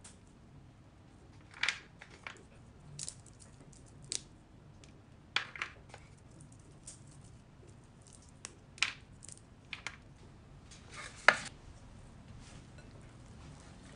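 Light kitchen handling sounds: about a dozen scattered clicks and taps as chopped walnuts are picked off a metal baking tray and a silicone spatula moves in a glass mixing bowl, with the loudest knock about eleven seconds in.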